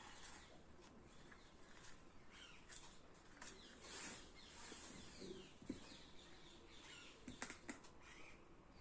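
Near silence, with faint bird chirps in the background and a few soft clicks from a plastic spatula working thick cornstarch slime in a bowl.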